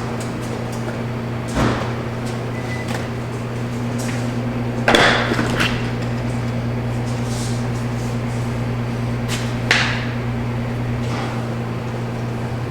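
Microwave oven running with a steady hum while it melts butter, with a few short knocks and clatters, the loudest about five seconds in.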